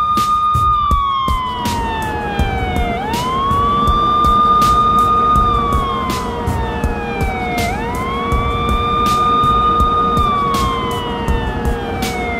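Wailing siren, police-car style. Each cycle rises quickly, holds its high pitch for about two seconds, then slides slowly down, repeating about every four and a half seconds. Under it run a low rumble and frequent short clicks.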